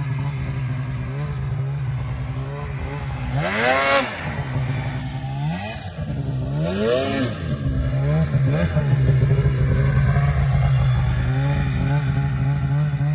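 Polaris 800 RMK two-stroke twin snowmobile engine running, revving up and dropping back a few times, about 4 and 7 seconds in, then held louder at higher revs.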